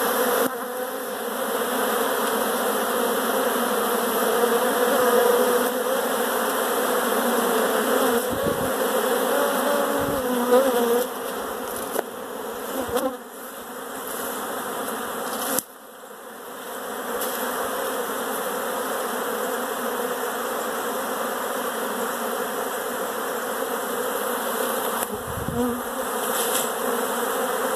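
Many honey bees buzzing in flight around their nest, a dense, continuous hum that drops briefly about halfway through and then returns.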